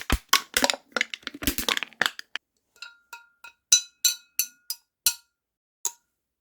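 Crackling and crunching handling noise for about two seconds, then glass beer bottles clinking against each other about eight times, each clink ringing briefly.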